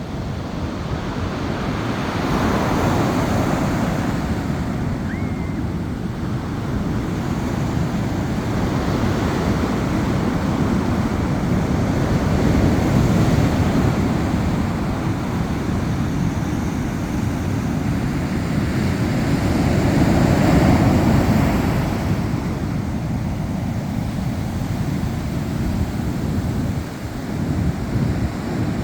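Ocean surf breaking and washing on a beach, in a steady rush that swells louder every several seconds as waves come in, with wind buffeting the microphone.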